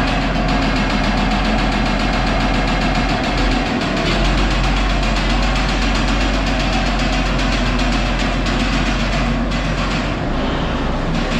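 Case IH Magnum MX245 tractor's diesel engine running steadily as the tractor is driven a short way. The engine has internal trouble and is due to be pulled for a rebuild.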